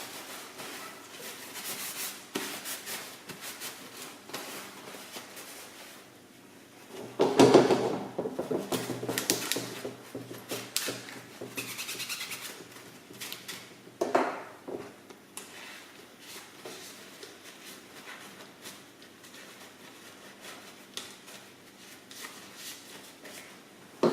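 Dishwasher filters being scrubbed and handled: a run of small clicks, scrapes and knocks of plastic and metal parts, with a louder clatter about seven seconds in and another knock around fourteen seconds.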